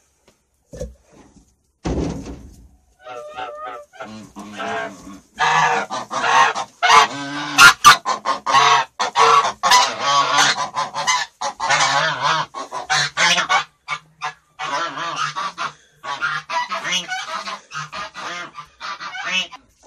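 Farmyard poultry calling as a flock, many loud calls overlapping, starting a few seconds in and soon becoming dense.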